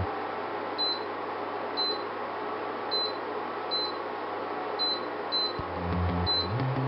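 Touch-control panel of an Esperanza portable induction cooktop giving a short, high beep at each button press, seven times at uneven intervals, as the power setting is stepped up and down between 200 and 1600 watts. A steady hiss runs underneath.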